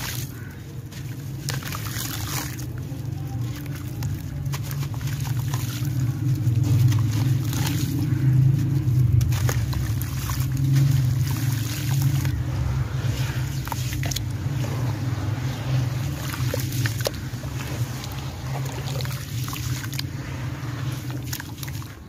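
Gritty sand-cement chunks crushed and crumbled by hand in a bowl of water: many small crunches and crackles, with sloshing and trickling water. A steady low rumble runs underneath and is the loudest part.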